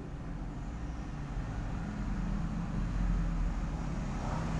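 Steady low background rumble with a faint hum, getting slightly louder toward the end.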